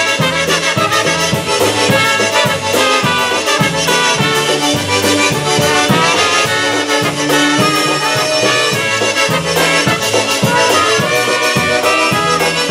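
Live polka band playing an instrumental passage: piano accordion and concertina playing the tune over a steady, regular bass beat.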